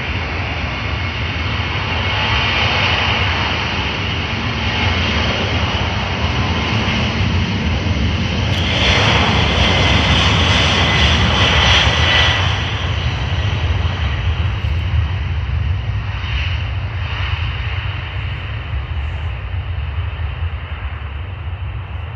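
Airbus A300 freighter's twin jet engines at takeoff power during the takeoff roll: a steady jet roar that swells to its loudest about nine to twelve seconds in as the aircraft passes, then slowly fades.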